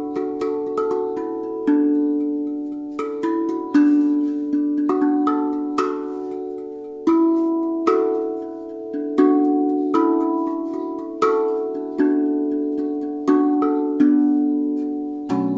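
RAV Vast steel tongue drum in B Celtic minor played with the fingers: a slow melody of single struck notes, about one or two a second, each ringing on and fading as the next one sounds.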